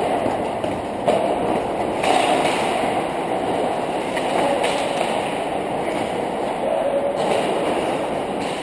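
Hockey skates scraping and gliding on rink ice as the helmet-camera wearer skates, a steady rushing noise that swells with a fresh stride every second or two.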